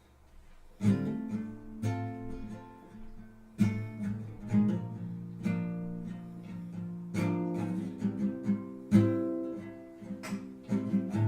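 Acoustic guitar strumming and picking chords, starting about a second in, with each chord left to ring between strokes.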